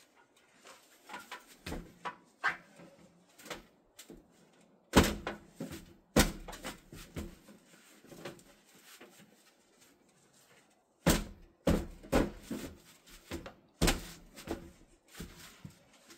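Irregular knocks and bangs of metal chimney pipe being handled and worked on, with small clicks early on, a loud bang about a third of the way in and a cluster of loud knocks in the last third.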